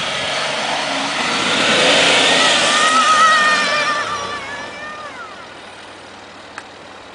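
Land Rover Discovery 3 (LR3) engine revving hard as the wheels spin in loose sand on a climb. The revs build, peak a few seconds in, then fall away to a quieter running sound.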